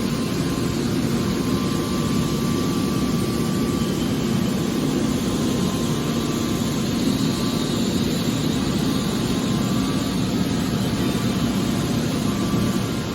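Aluminium-can baling press running, a steady mechanical hum from its motor and pump with a couple of low steady tones.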